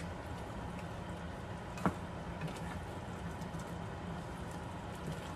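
Wooden spatula stirring chunky chicken curry with potatoes and carrots in a metal pan, with a sharp knock against the pan about two seconds in and a few lighter clicks, over the curry simmering and a steady low hum.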